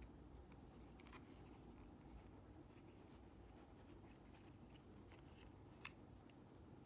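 Faint handling sounds of fingers stretching a foam sponge pad over the plastic earpiece of a Sony MDR-Q38LW headphone: soft rubbing with small clicks, and one sharp plastic click near the end.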